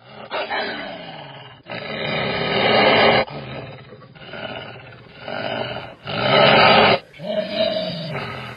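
Monster growls and roars: a string of about six rough snarls joined by sharp cuts, the loudest near the end.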